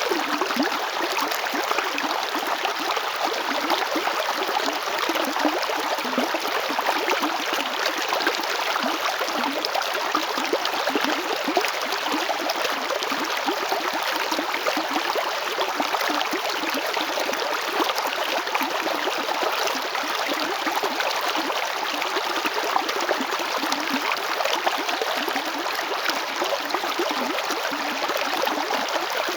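River water flowing over stones in a steady, close rush with fine bubbling and gurgling.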